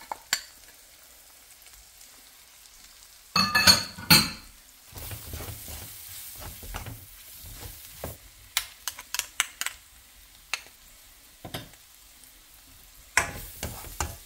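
Browned chicken pieces sizzling in a ceramic nonstick frying pan while a plastic spatula stirs and scrapes a dry spice mix through them. A louder burst of clattering scrapes comes about three to four seconds in, and scattered light clicks of the spatula on the pan follow.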